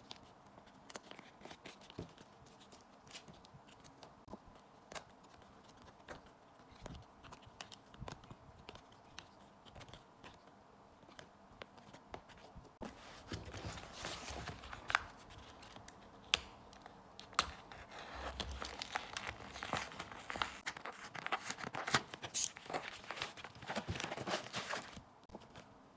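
Packaging being handled, with scattered light clicks and rustles. About halfway through comes a long stretch of tearing and crinkling as it is opened, which stops shortly before the end.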